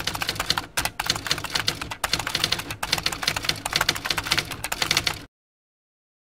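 Typewriter sound effect: rapid, uneven key clicks as a caption is typed out letter by letter, running for about five seconds and then stopping abruptly.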